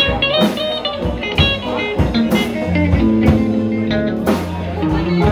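Slow blues played by a band: guitar playing held and bent notes over low bass notes and drums, with a drum hit about once a second.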